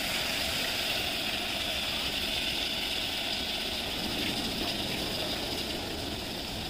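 Steady hiss of brinjal and masala frying in an open pressure cooker on a gas stove.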